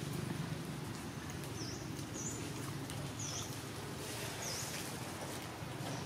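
Outdoor background noise: a steady low hum with faint ticks, and about four brief high chirps spread through.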